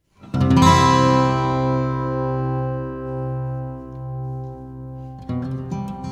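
Background music on guitar: a chord rings out and slowly fades, then picked notes start up again about five seconds in.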